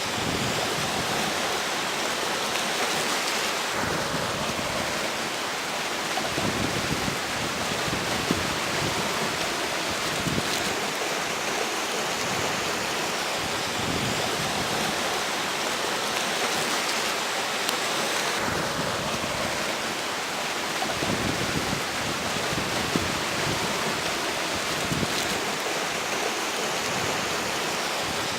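Steady rushing of a flowing river, with strong wind blowing over it. The wind gusts in as low rumbles twice, about a quarter of the way in and again past the middle.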